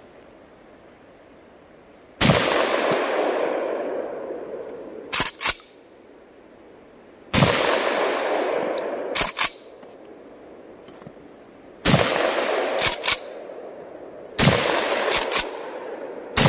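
Kel-Tec KS7 12-gauge pump-action bullpup shotgun fired four times a few seconds apart, each blast echoing away over a couple of seconds. After each shot the pump is worked, two short sharp clicks as the slide goes back and forward to chamber the next shell.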